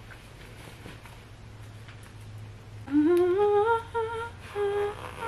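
A woman humming a short tune, starting about three seconds in: her pitch climbs in steps and then settles on a few held notes. Before that there is only quiet room noise with a low steady hum.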